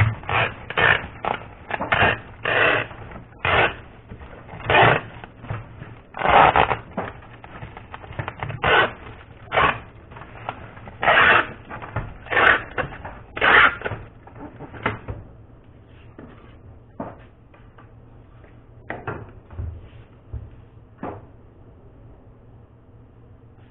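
Handling noise: a quick, irregular series of short scraping and rustling sounds that thins out and gets quieter after about fourteen seconds.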